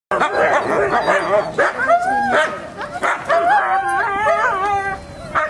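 Excited sled dogs in harness yelping, whining and giving wavering howl-like cries, several voices overlapping, as dogs do when eager to run.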